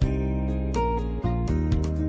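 Instrumental background music: plucked guitar notes over held bass notes, moving to a new note or chord about every half second to a second.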